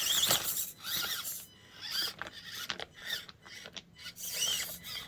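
Deadbolt RC crawler truck's electric motor and drivetrain whining in short rises and falls as the throttle is worked, with scattered clicks and scraping as it climbs over the course obstacles.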